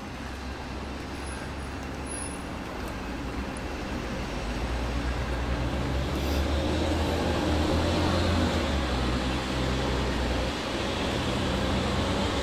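City street traffic noise with a heavy vehicle's engine running low and steady, growing louder toward the middle and easing slightly near the end.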